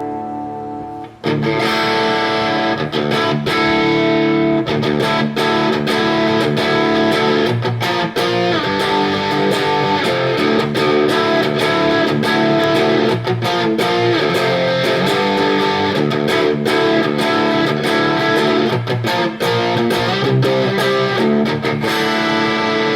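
Electric guitar played through a Mesa Triple Crown TC-50 tube amp head. A held chord cuts off about a second in, then the guitar goes into busy riffing with many sharp picked attacks and no pauses.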